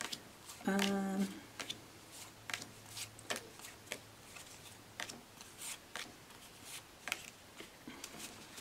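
Stiff cardboard game cards being leafed through by hand, one flicked over every third to half second, each giving a short dry snap.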